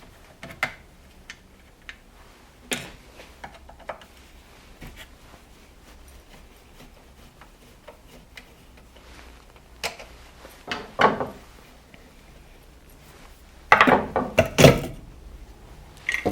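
Hand tools and small metal parts being handled while a chainsaw is dismantled: scattered clicks and knocks, with a louder burst of clattering about three-quarters of the way through.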